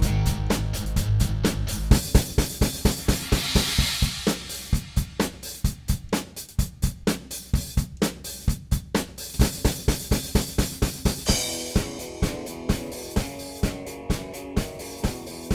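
Rock music driven by a drum kit playing a steady beat, with cymbal washes about three seconds in and again about two-thirds of the way through.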